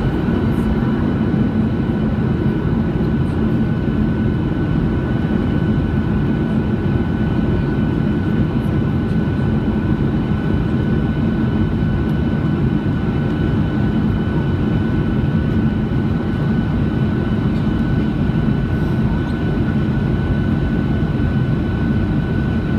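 Steady cabin noise of a jet airliner on its landing approach, heard from inside the passenger cabin: a deep, even rumble of engines and airflow with a constant thin whine from the engines over it.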